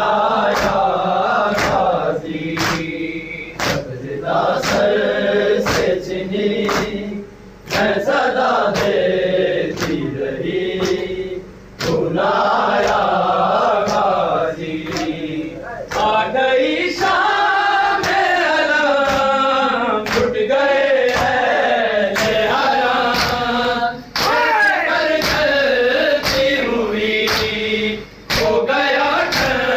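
A group of men chanting a nauha lament together, with rhythmic matam: open hands striking chests in unison about once a second, keeping time with the chant.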